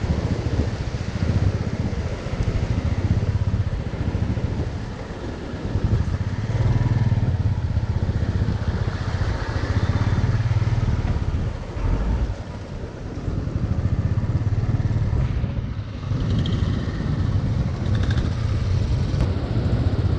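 Motorcycle engine running, its low note dipping and picking up again a few times, over a constant rush of glacial meltwater stream water flowing across the road.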